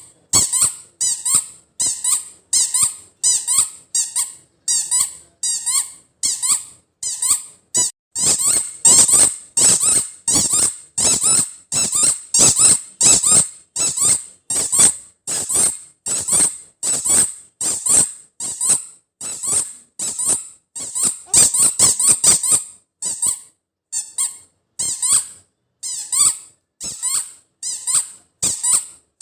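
A squeaky rubber toy ball being squeezed over and over. It gives a steady run of short, high-pitched 'chuu chuu' squeaks, about two a second.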